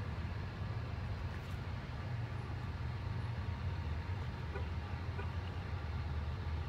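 Fire engine's diesel engine idling: a steady low rumble.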